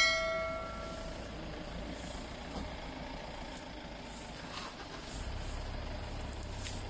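A bell-like chime sound effect rings at the start and fades out within about a second. A steady low rumble follows and grows a little louder about five seconds in.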